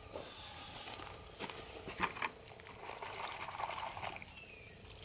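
Faint footsteps and rustling on pine straw, with a few light knocks from a wooden drawer being handled, over a steady high whine.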